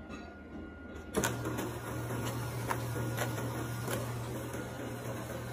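Automatic self-cleaning cat litter box starting up: a sharp click about a second in, then its drive motor running with a steady low hum and a few scattered clicks.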